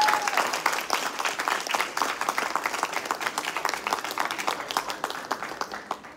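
Audience applauding in a hall, with a held high cheer at the very start; the clapping thins and dies away near the end.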